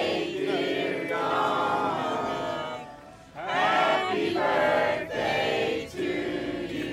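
Several voices singing together in long held phrases, like a choir. There is a break about three seconds in and a shorter one near the end.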